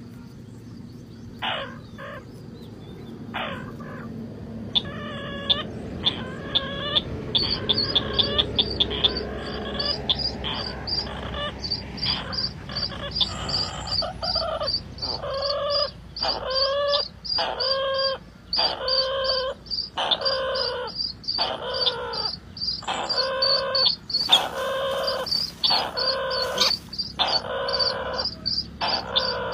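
Birds calling: a short call with several stacked pitches repeats about once a second and grows louder after the first few seconds, over a fast, high, steady chirping.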